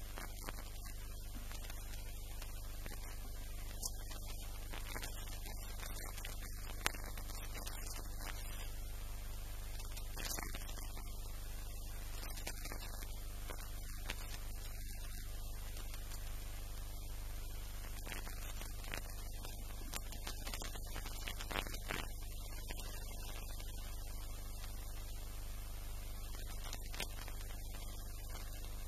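A steady low hum with a few faint clicks, the sharpest about seven seconds in.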